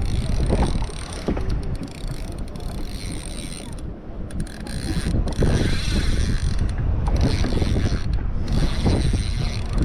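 Mechanical whirring and clicking of a fishing reel being cranked to retrieve a jig. Strong wind buffets the microphone throughout.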